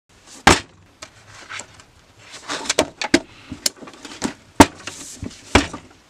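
A spiral sketchbook being set down and handled on a wooden tabletop: a string of sharp, irregular knocks and taps, with paper rustling between them.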